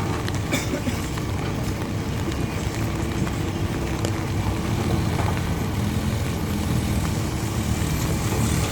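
A motor vehicle's engine running steadily at low revs, over a steady hiss.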